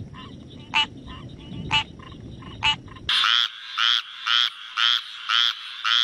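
Tree frogs calling. First come short croaks about once a second over a low rumble. From about three seconds in, a squirrel tree frog gives rasping calls about twice a second.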